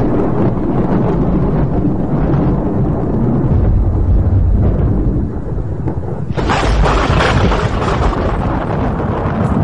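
Thunder rumbling low and continuous, with a louder, brighter surge starting about six seconds in.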